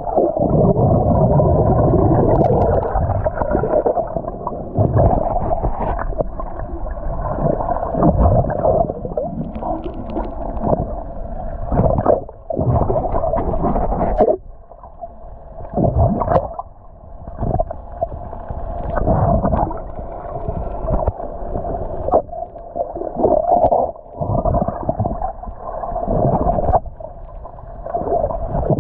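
Muffled underwater sound picked up by an action camera below the surface: water sloshing and gurgling against the housing, with a steady hum underneath. It comes in uneven surges that drop away briefly several times.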